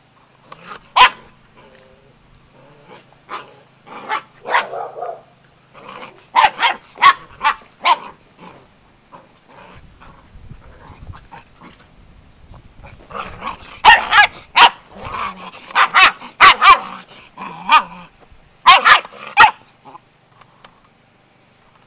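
Seven-week-old Gordon Setter puppies barking and growling as they play-fight, in clusters of short, sharp calls. The calls are busiest and loudest in the second half.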